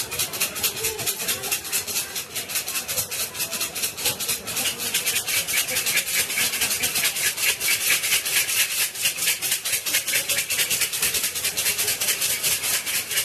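Bundle of wooden fortune sticks (siam si) rattling in a cup as it is shaken quickly and steadily, several clacks a second, the way it is shaken until a numbered stick falls out.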